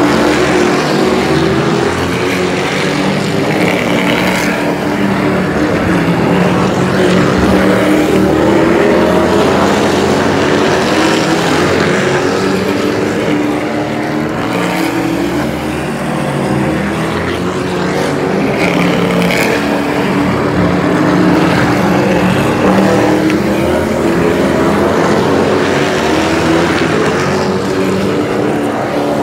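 Super trucks (stock-car-style race trucks) racing on a paved oval track, their engines running hard. The engine note swells and fades with a shifting pitch as trucks pass close by, several times over.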